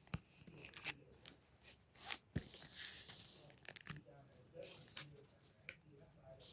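Paper being handled close by: irregular rustles, crinkles and small sharp clicks.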